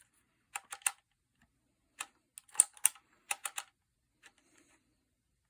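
Phomemo E975 handheld embossing label maker clicking in short bursts of sharp clicks as its letter wheel is turned and the grip squeezed to press letters into the tape, the clicks fainter near the end.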